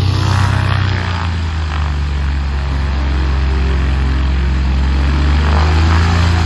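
Small propeller aeroplane's piston engine running steadily and loudly, with a deep even drone and propeller wash.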